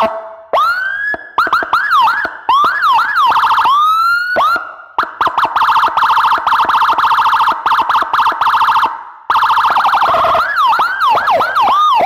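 Whelen HHS electronic siren being switched through its tones from the control-head buttons. It rises in a swoop, gives quick up-and-down yelps with brief cut-offs, runs a fast warble for about four seconds in the middle, and near the end sweeps up and down again.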